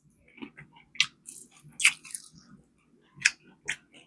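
Close-miked chewing of crispy fried chicken: irregular crunches and wet chewing, with the sharpest crunches about a second in, near two seconds and twice near the end.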